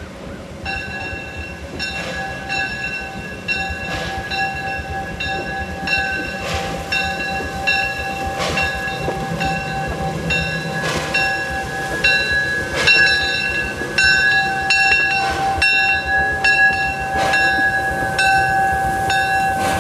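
Small steam locomotive's bell ringing steadily, struck about twice a second from about a second in, as the engine backs up. Slow, irregular chuffs of steam exhaust come from the stack.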